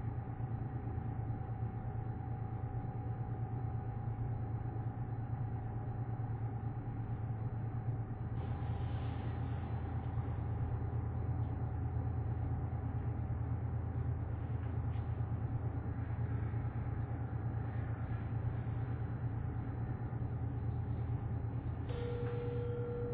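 Steady low machine hum throughout, with a single steady tone lasting under two seconds near the end.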